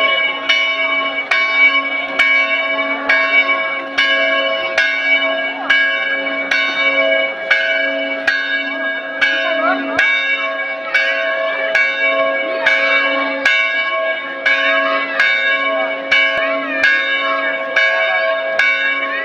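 Church bells ringing in a steady, even peal of about two strikes a second, their tones ringing on between strokes.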